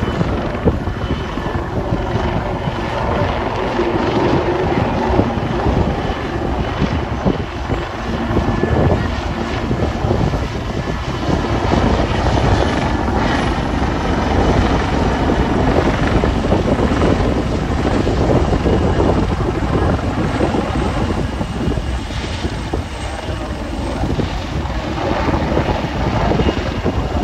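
AgustaWestland AW159 Wildcat helicopter flying a display pass, its rotor and twin turboshaft engines heard from the ground as a steady, dense rumble that swells a little midway through.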